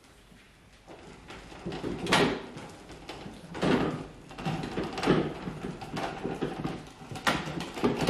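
Case David Brown 1394 tractor on caster-wheeled stands being pushed by hand across a concrete floor: the casters and tyres roll and rattle in uneven surges, starting about a second in.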